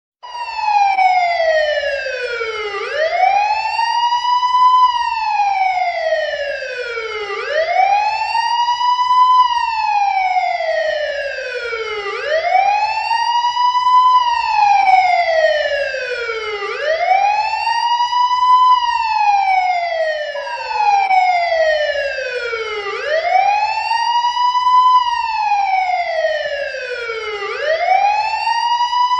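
Spanish police siren wailing: a single tone that sweeps up and then slides back down, repeating about every five seconds. Each rise is quicker than the fall that follows.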